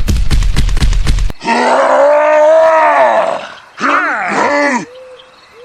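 A rhythmic chugging with heavy bass, about five beats a second, cuts off suddenly about a second in. A long, deep groaning voice follows, rising and falling in pitch, then a shorter wavering groan.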